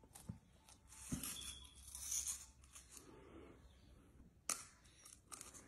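Faint dry scraping and a few sharp clicks of wafer cake cones being rubbed together and pulled apart in a child's hands.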